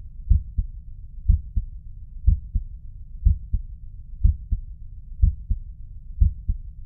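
Recorded heart sounds as heard on cardiac auscultation: the first and second heart sounds ('lub-dub') in pairs about a quarter second apart, repeating roughly once a second.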